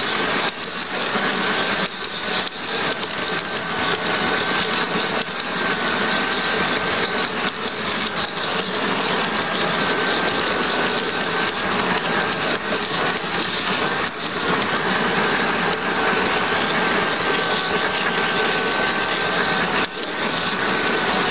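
Model railway locomotive running, its motor and gearing giving a steady rattling drone with a faint wavering whine, and a few short clicks now and then.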